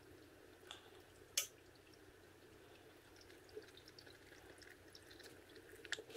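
Motor oil pouring faintly from a plastic jug through a funnel into an engine's oil filler. There is one sharp click about a second and a half in, and a few knocks near the end as the jug is tipped back up.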